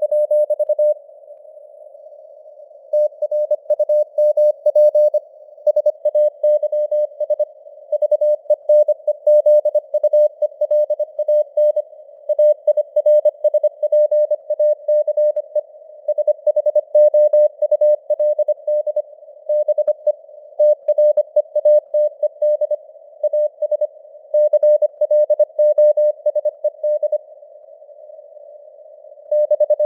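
Morse code (CW) sent at 25 words per minute: a single steady mid-pitched tone keyed on and off in dots and dashes over a narrow band of hiss, which is simulated radio noise with signal fading (QSB). There are longer pauses between words about one to three seconds in and again near the end.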